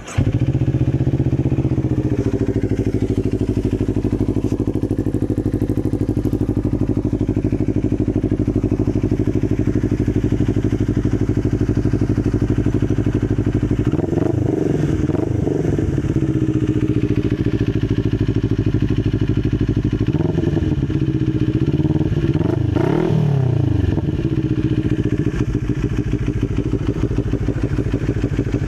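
CFMoto NK400 parallel-twin motorcycle engine running through a newly fitted aftermarket exhaust pipe. It catches at the very start, then idles steadily, with short throttle blips about halfway through and a few more revs a little later.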